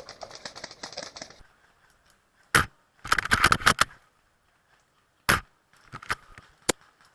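Rustling for the first second and a half, then sharp clicks and rattles: a single loud click, a dense rattling cluster about three seconds in, another single click, and scattered lighter clicks near the end.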